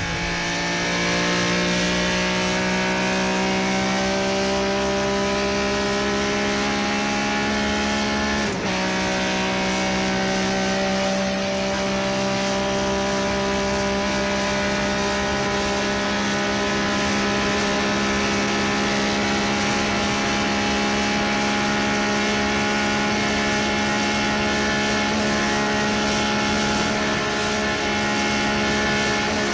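Ferrari engine running at steady revs under way, its note creeping slightly up in pitch and then holding, with a brief dip about eight and a half seconds in, over wind and road noise.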